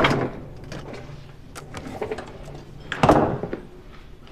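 A door being opened and shut: two sudden thuds about three seconds apart.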